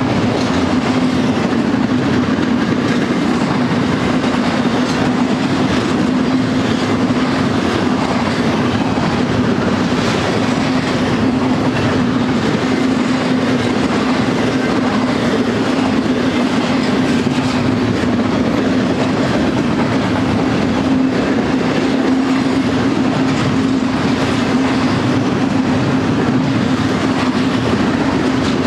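Double-stack intermodal container train's well cars rolling past at close range, steel wheels clattering over the rails in a loud, steady rumble with a constant hum running through it.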